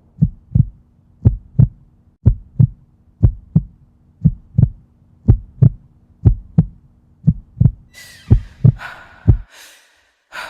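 Heartbeat sound effect: paired low thumps, about one pair a second, over a faint steady drone. About eight seconds in, hissing swishes join it, and then everything cuts off suddenly.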